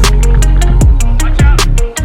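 Background electronic music with a heavy bass beat and steady drum hits.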